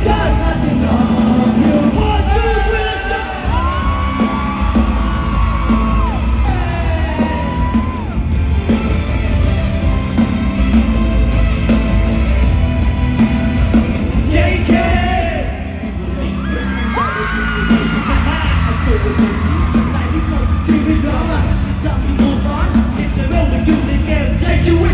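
Live pop music played over an arena PA, with a heavy bass beat, male singing with held, sliding notes, and yells and whoops from the audience.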